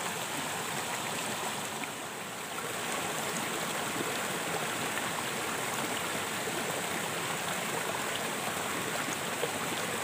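Shallow rocky stream flowing steadily over stones: a continuous, even rush of running water.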